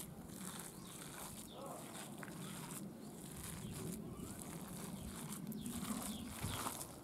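Soft squishing of a coarse lentil-and-dill vada dough being mixed by hand in a steel bowl, over a quiet outdoor background with a few faint bird calls.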